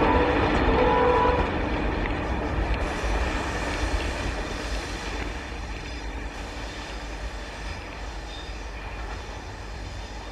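Passenger train and its rear pair of electric locomotives running away into the distance, the rumble of wheels and locomotives fading steadily. A steady tone sounds over the rumble and stops about a second and a half in.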